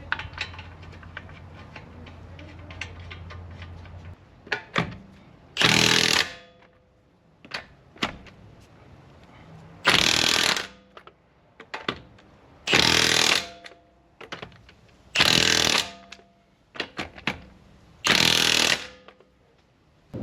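Impact wrench running the lug nuts onto a car wheel: five short, loud bursts, one per lug nut, spaced a few seconds apart. A low hum with light ticking comes first.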